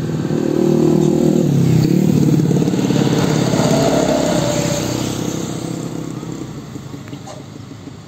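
A diesel cargo truck driving past: its engine grows louder as it approaches, is loudest between about one and four seconds in, then fades as it moves away. A motorcycle passes close by at the same time.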